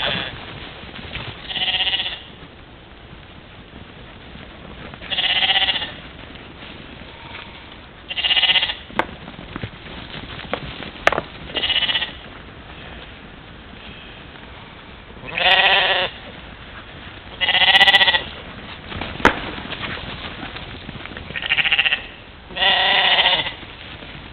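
European mouflon bleating: about nine separate bleats, each roughly half a second to a second long, spaced a couple of seconds apart, with a few sharp clicks between them.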